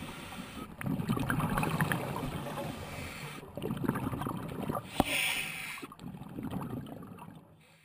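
Underwater sound of a scuba diver's exhaled bubbles gurgling irregularly. A sharp click about five seconds in is followed by a short hiss, and the sound fades out at the end.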